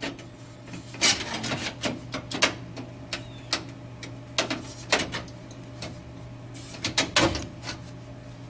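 Irregular clicks, knocks and light scraping of small metal latch parts being handled and fitted by hand, over a steady low hum.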